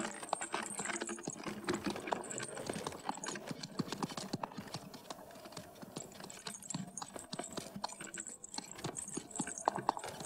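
Horse hooves clopping, with the irregular knocking and rattling of a horse-drawn wagon moving along a snowy country road.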